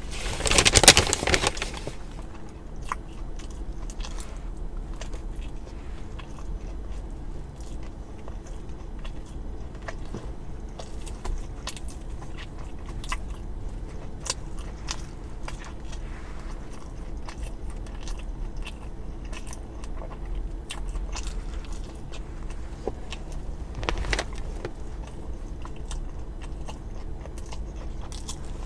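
Close-miked eating sounds: wet chewing with scattered small clicks and crunches, and a louder noisy burst about a second in and another near the end, likely bites or wrapper rustling.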